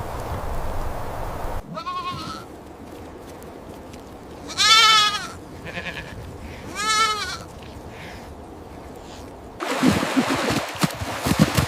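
Sheep bleating: a short call about two seconds in, then two loud, wavering bleats about five and seven seconds in. Noisy rustling with thuds comes at the start and again from near the end.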